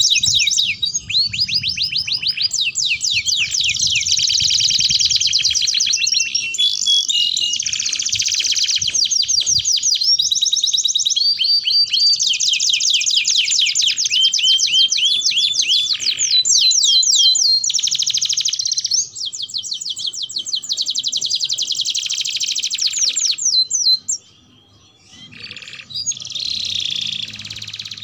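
Domestic canaries singing long, rapid rolling trills and twittering phrases almost without a break. The song stops briefly about three-quarters of the way through, then resumes.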